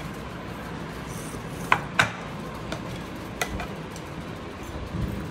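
Stainless-steel tableware clinking on a thali plate: two sharp clinks close together about two seconds in, and another about a second and a half later, over a low steady background hum.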